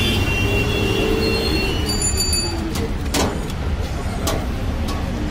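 Street traffic: a steady low rumble of passing vehicle engines, with a horn fading out at the start. A few sharp clicks or knocks come in the second half.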